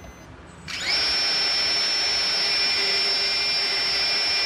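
Electric RC car motor, powered from an 18-volt Ryobi lithium drill battery through an RC airplane speed controller, spinning up quickly under no load. About a second in it settles into a loud, steady, high-pitched whine.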